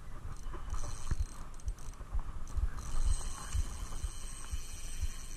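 Spinning reel being cranked while playing a hooked fish from a kayak, with irregular low knocks from handling the rod and hull. A steady high hiss joins about three seconds in.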